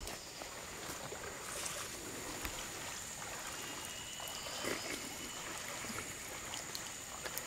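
Shallow stream water running and trickling over rocks and logs, with a steady high-pitched tone running through it and a few small clicks.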